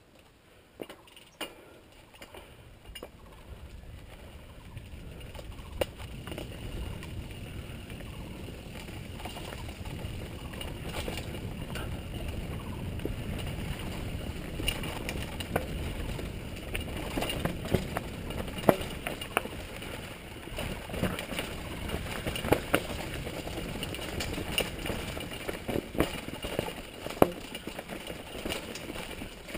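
Mountain bike running down a dirt trail: tyre noise over gravel and leaf litter with frequent sharp rattles and knocks from the bike over rough ground. It grows louder as speed builds over the first several seconds.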